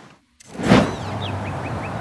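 A film soundtrack playing over loudspeakers: after a brief silence, a loud whoosh swells up under a second in and gives way to a steady outdoor rumble, with a run of short, high chirps.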